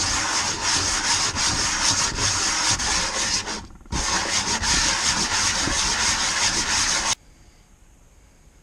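Pinecone knife handle scales being sanded flat against an abrasive, a dense continuous rasping with a brief pause about three and a half seconds in; it stops abruptly about seven seconds in.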